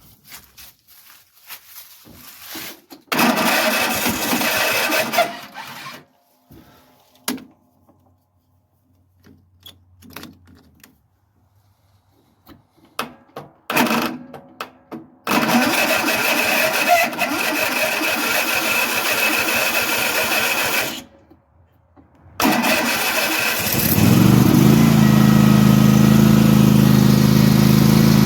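Battery-start lawnmower being cranked by its electric starter in several long bursts with pauses between. Near the end the engine catches and runs steadily.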